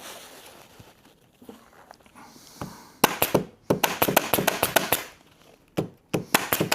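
Elastic sofa seat webbing being pulled and woven through the seat's webbing strips: a soft rustle, then two runs of fast crackling rasps, about three seconds in and again near the end.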